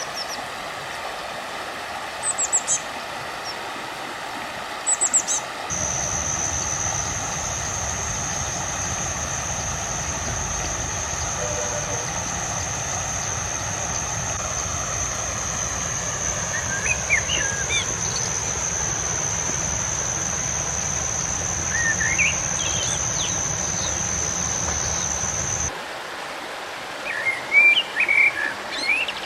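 River water flowing steadily, with small birds chirping in short bursts now and then, most busily near the end. A steady high-pitched whine and a low rumble come in about six seconds in and cut off suddenly some twenty seconds later.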